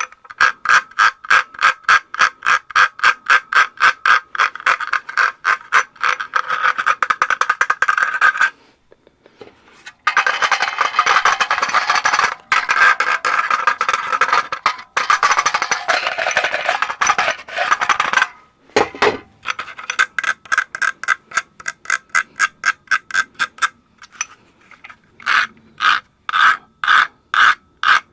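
H&K USP40 pistol handled rapidly: fast runs of metallic clicks, about four a second, with a stretch of continuous rasping and scraping in the middle and a low thump about two-thirds of the way through.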